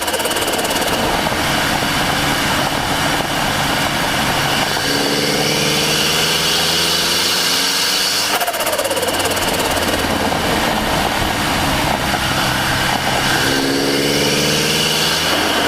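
Turbocharged Mazda MX-5 Miata engine and turbo pulling under acceleration, heard close to the turbo, with a steady high whine over the engine note. The engine note climbs twice, once about a third of the way in and again near the end, with a brief break just past halfway.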